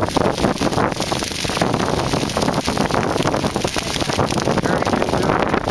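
Grass fire of a controlled prairie burn, the flame front crackling and rushing steadily through tall dry grass, with wind buffeting the microphone.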